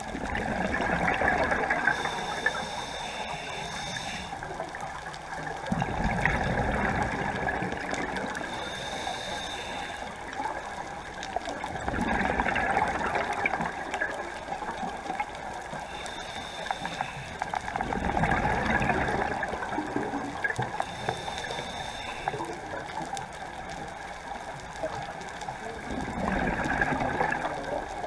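Scuba diver breathing through a regulator underwater: five exhalations of rushing bubbles, about six seconds apart, each with a thin regulator hiss on the inhale between them.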